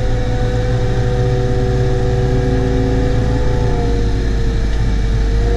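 Caterpillar 914G wheel loader's diesel engine running steadily, heard from inside the cab: a deep drone with a steady whine over it that sags slightly about four seconds in. The loader is creeping along with a heaped bucket of snow.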